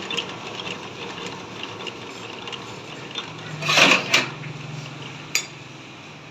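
Metal lathe running with light ticking and rattling. A loud, harsh scrape of about half a second comes a little past the middle, followed by a shorter one, and a steady low hum sets in just before them.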